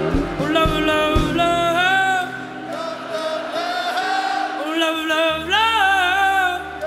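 Live band performance: several voices singing together in harmony, over kick drum beats that stop about a second in, with a held deep bass note entering near the end.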